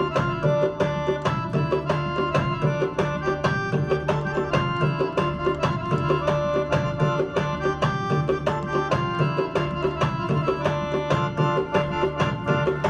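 Afghan song playing as background music, with a steady percussion beat and sustained melody tones.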